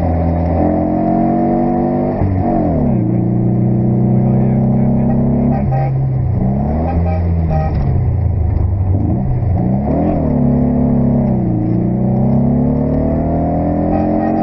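VW Beetle rally car's air-cooled flat-four engine, heard from inside the car under hard driving. It revs up, shifts gear about two seconds in, then drops and climbs again several times as it brakes and accelerates through bends.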